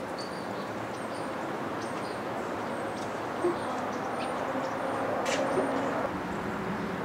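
Steady outdoor background noise with small birds chirping now and then, a brief knock about three and a half seconds in, and a sharp click a little past five seconds as the pickup's driver door is unlatched and opened.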